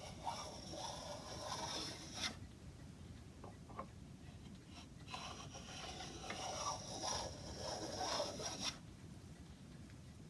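Hand tool scraping along an oak moulding as a small bead is shaped, in two spells of rapid scraping strokes, each ending with a sharp click.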